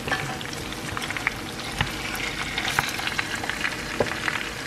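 Pork chops with lemongrass frying in hot oil in a pan: a steady sizzle with many small crackles and pops throughout.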